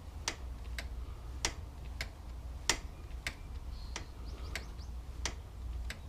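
A run of sharp, light clicks, about ten of them, unevenly spaced roughly every half second to second, over a low steady hum.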